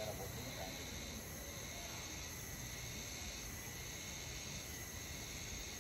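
Faint, steady chorus of insects, crickets or similar, chirring on several high pitches at once, over low background rumble.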